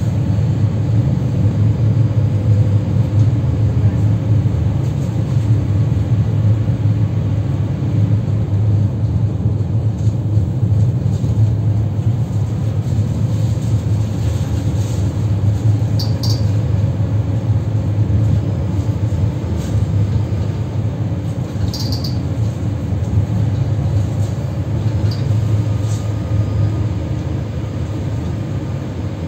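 Tram in motion, heard from inside the car: a steady low rumble of the running gear and wheels on the rails. Two brief high-pitched ticks sound about midway.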